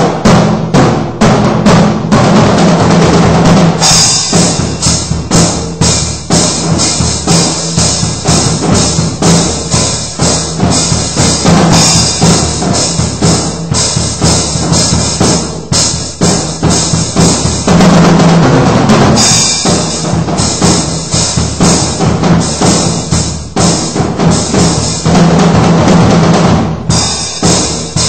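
Drum kit played loosely to test its sound: quick, steady strokes on the bass drum, snare and toms, with cymbals ringing over the beat in long stretches from about four seconds in.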